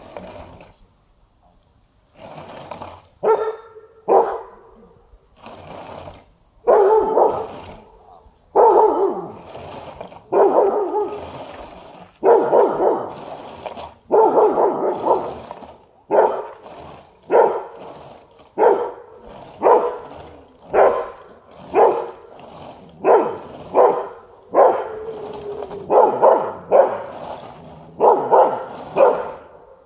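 A dog barking over and over at a dummy figure being drawn toward it. The barking starts about three seconds in and keeps on at roughly one bark a second, some in quick pairs.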